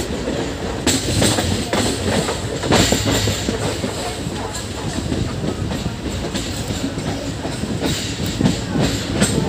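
Indian Railways passenger coach of the 17405 Krishna Express running along the track, heard from its open doorway. A continuous rumble is broken by irregular sharp clacks of the wheels over rail joints.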